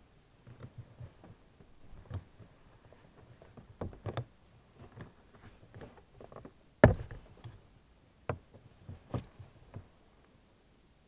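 Scattered plastic clicks and knocks as a Renault Mégane II interior door handle is worked free of its retaining clips, with one sharp knock about seven seconds in.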